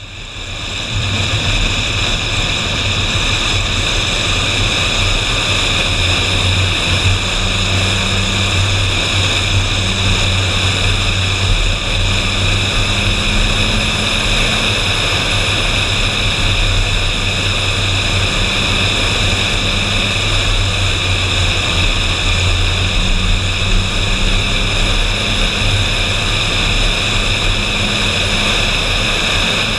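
Ferrari 458 Spider's V8 engine at a steady cruise: a low, even engine drone mixed with wind rushing over a camera mounted on the car's body. It fades in at the start and then holds steady, with no revving.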